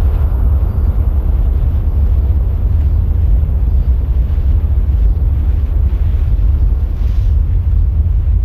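A loud, steady deep rumble with a fainter hiss above it, unchanging throughout.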